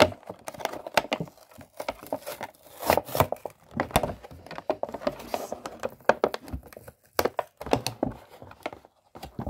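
Clear plastic blister packaging crinkling and crackling in irregular bursts as it is handled and pried open by hand, with brief lulls about seven and nine seconds in.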